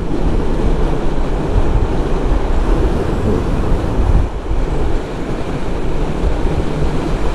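Wind buffeting the microphone of a motor scooter on the move, a steady low rumble of wind and road noise.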